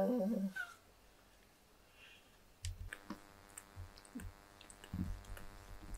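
Domestic cat grooming itself close up: small wet clicking licks and soft thumps of tongue and fur, starting a little under three seconds in, over a faint steady hum.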